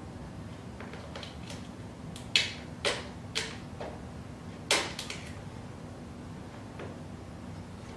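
A pet door's plastic flap clicking and knocking against its frame, about half a dozen sharp knocks spread over the first five seconds and a faint one near the end, as an animal pushes at it from the other side. A low steady hum runs underneath.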